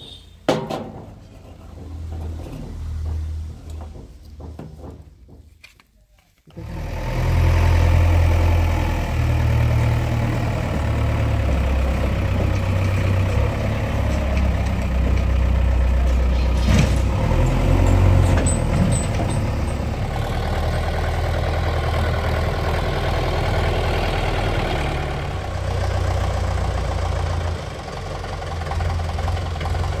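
Heavy diesel engine idling steadily, cutting in abruptly about six seconds in after a quieter stretch.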